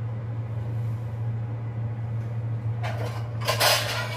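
Short scraping, clattering handling noises about three seconds in, over a steady low hum.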